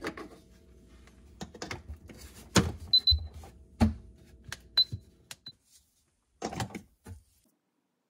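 Plugs and a small device handled at a wall outlet: a run of sharp clicks and knocks, with three short high beeps among them.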